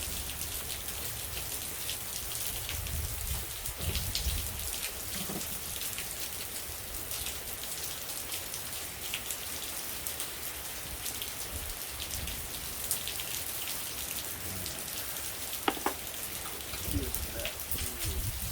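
Steady rain falling: an even hiss scattered with fine drop ticks, with a couple of sharp small clicks near the end.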